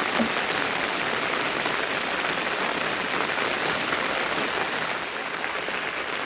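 Rain falling steadily, an even hiss with no pauses.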